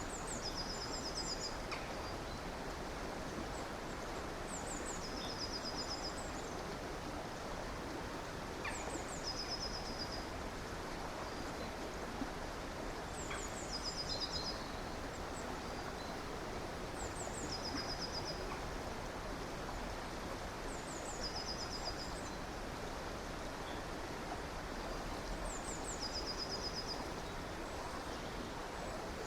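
Steady rush of a stream or river, with a small songbird repeating the same short high song about every four seconds: a few quick high notes, then a fast trill.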